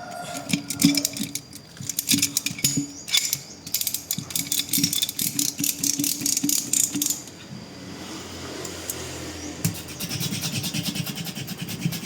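Mechanical rattling and clattering, heard as quick runs of sharp clicks for about seven seconds, then a steadier rushing noise that cuts off suddenly at the end.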